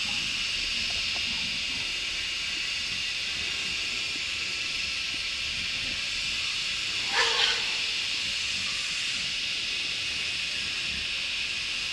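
Steady high-pitched drone of forest insects. About seven seconds in there is one short animal call in two quick parts.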